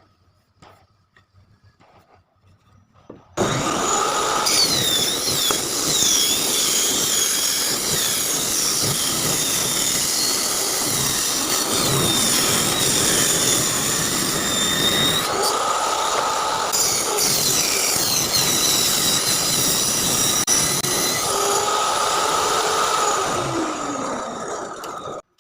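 After about three seconds of near quiet, an electric power tool starts working wood and runs continuously under load. Its high whine repeatedly dips and recovers as it bites, and the noise stops just before the end.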